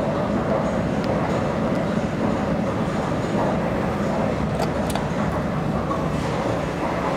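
1972 KONE ASEA-Graham inclined elevator running: a steady mechanical rumble with a faint hum, and a couple of light clicks a little past halfway.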